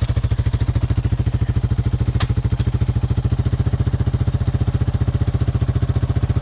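Four-wheeler (ATV) engine running steadily at one speed, a fast even pulsing beat, with the machine stuck and bottomed out.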